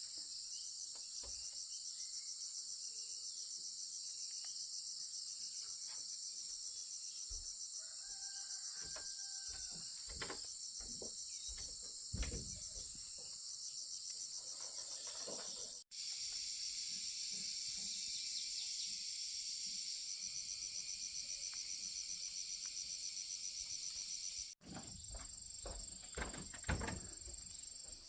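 Dense chorus of insects trilling steadily in a high-pitched, fast-pulsing drone, with faint scattered knocks beneath it. The sound breaks off abruptly twice, about 16 and 24 seconds in, and each time resumes at once.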